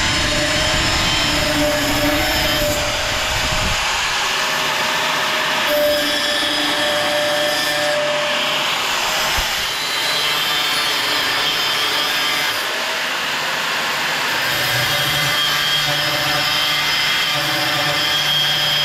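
A power saw running and cutting steel, a loud steady grinding noise with a few held tones; its deep component drops away about four seconds in and its tone shifts several times after that.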